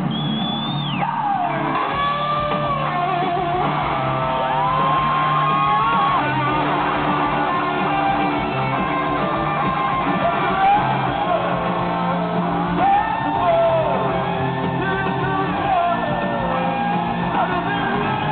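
Live rock band playing loud through a stage PA, heard from within the audience: electric guitars and drums with a sung lead vocal over them.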